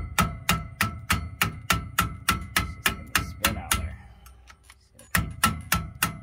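Hammer striking the end of a screwdriver set in a notch of the threaded bearing retaining nut on a 2012 Ford F-350 dually's rear hub, driving the nut around to unscrew it. The metallic strikes come about four a second, each with a ringing tone, pause for about a second past the middle, then resume.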